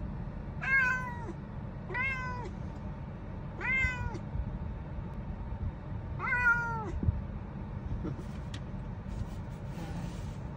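Long-haired tabby cat meowing four times in the first seven seconds. Each meow is a drawn-out call that drops in pitch at the end, over a low steady hum.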